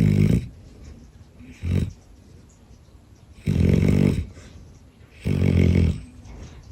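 A sleeping dog snoring: four separate snores, the second short and weaker, the third and fourth longer.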